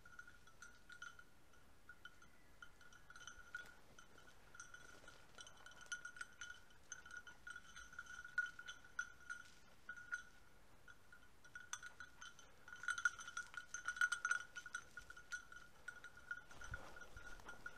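Small dog bell on a setter jingling in irregular clusters as the dog moves about, louder for a couple of seconds about three quarters of the way through. The ringing shows the dog is still on the move and not yet on point.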